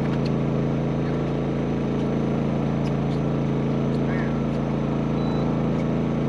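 Steady, unchanging low hum of a motor running aboard a bowfishing boat.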